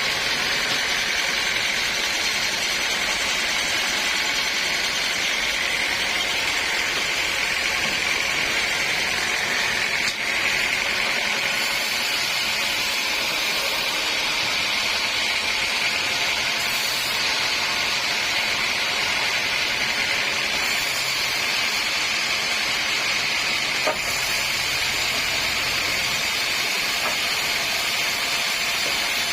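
Sawmill saw running steadily, a continuous high hiss with a faint whine that never breaks.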